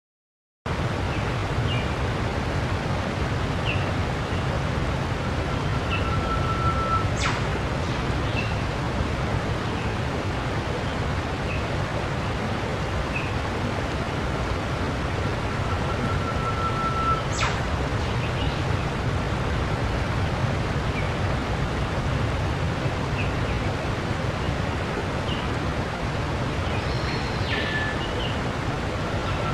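Outdoor nature ambience that cuts in about half a second in: a steady rushing noise with short bird chirps every second or two and a few brief whistled notes.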